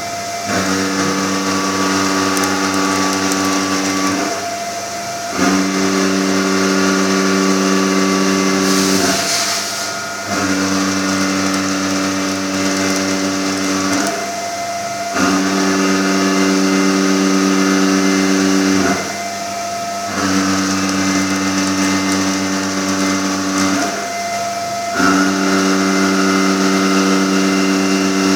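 Kyocera MFH high-feed milling head, a five-insert 50 mm cutter at 1100 rpm, taking shallow fast passes across hardened stainless steel on a CNC mill: each pass a steady pitched buzz lasting about four seconds. The passes repeat about every five seconds, with a higher whine in each short break between them, over a steady hiss of coolant spray.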